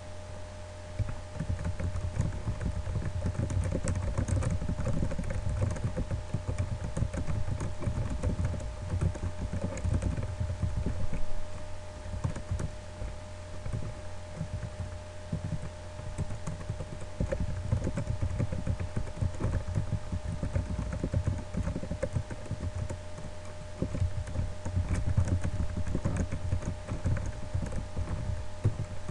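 Typing on a computer keyboard: runs of quick keystrokes with short pauses, over a steady low hum.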